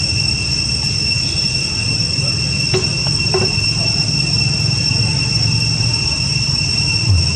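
Steady high-pitched drone of insects singing, over a continuous low rumble. Two brief faint sounds come about three seconds in.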